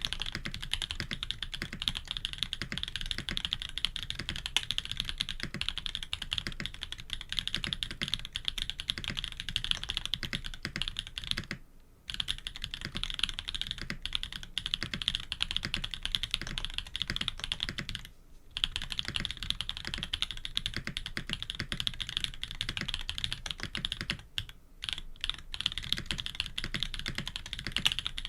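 Steady fast typing on a K80 custom mechanical keyboard with Jade Black switches, PBT keycaps and an FR4 plate, a dense run of keystroke clacks. The typing stops briefly twice partway through and stutters with a few short breaks near the end.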